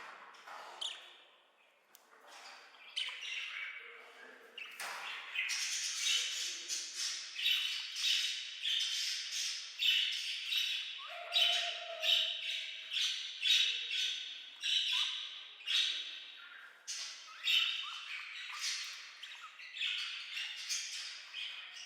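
A pair of budgerigars chattering and squawking: a rapid run of short, sharp calls that turns busier and louder about five seconds in.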